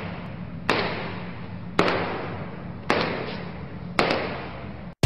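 Intro sound design: four heavy hits about a second apart, each dying away in a noisy wash, over a steady low drone. It cuts off suddenly near the end.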